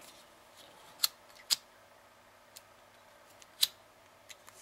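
A few sharp, separate clicks and taps from handling scissors and a lighter on a sewing table; the loud click a little after three and a half seconds in is the lighter being struck to heat-seal the cut ends of grosgrain ribbon.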